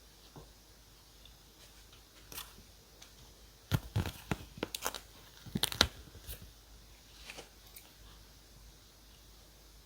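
Paper stationery being handled at a desk: a dense cluster of crisp crackles, snaps and tearing sounds in the middle, with a few lighter ticks before and after.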